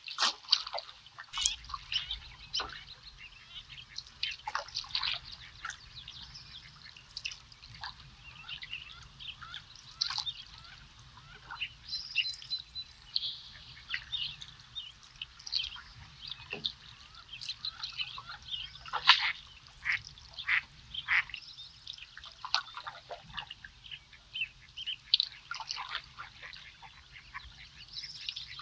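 A dense chorus of wild birds calling on a marshy riverbank: many short, high calls and chirps overlapping, with a faint low haze underneath.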